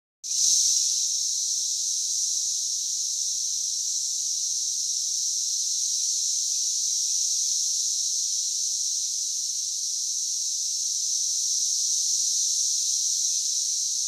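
Brood X periodical cicadas, males chorusing their mating call from the trees: a dense, steady, high-pitched buzzing drone with no breaks.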